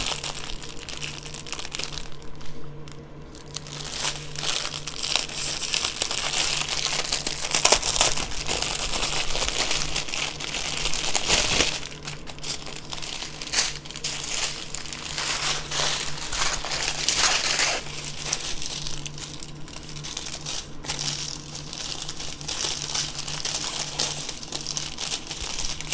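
Small clear plastic bags of diamond painting drills crinkling continuously and unevenly as they are picked up, handled and sorted by hand, with a faint steady low hum underneath.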